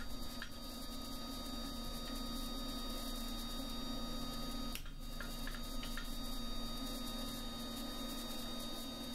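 Steady low hum in a blacksmith's workshop, with a few faint light clicks as the flatter and tongs are set on the hot bar at the anvil; no hammer blows land.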